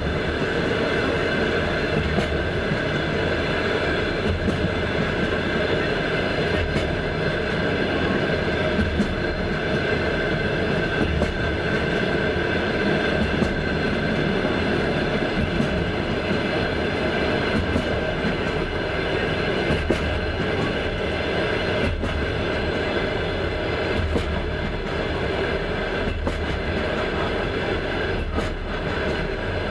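Passenger train wheels running on the rails: a steady rumble and a steady hum, broken by scattered short knocks.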